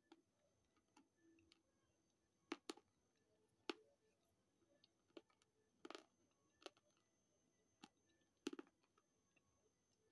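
Faint, sharp crunches and clicks from the mouth chewing slate pencil and clay. They come irregularly, about eight or nine in the span, a few coming in quick pairs.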